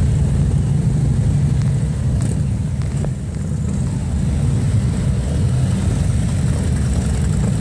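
A large pack of motorcycles riding slowly past together, their many engines blending into one dense, steady, low rumble.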